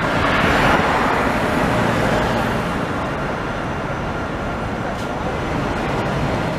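Alstom Citadis tram rolling past at close range: a steady rush of wheel and running noise that is loudest about a second in and then eases, with road traffic in the background.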